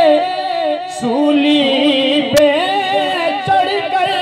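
A man singing a Sufi devotional kalam, drawing out long wavering melismatic notes between the words of the verse. A single sharp click sounds about two seconds in.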